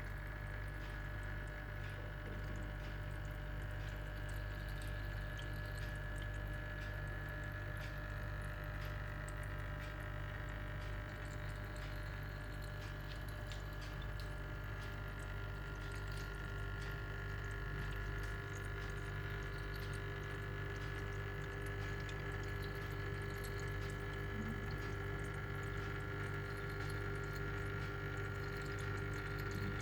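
Water trickling and dripping steadily in a homemade water fountain, with many small splashes and a steady low hum underneath.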